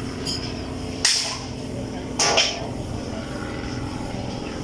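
A steady low rumble with a faint steady hum, broken by two loud, sudden knocks, one about a second in and one about two seconds in.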